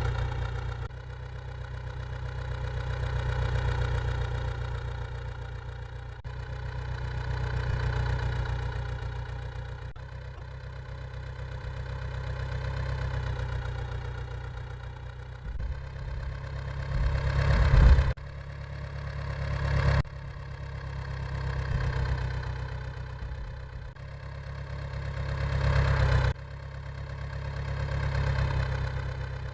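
Vehicle engine running steadily, its level swelling and easing about every four seconds, with several sudden cuts as if the sound is looped or edited, and a louder surge a little past halfway.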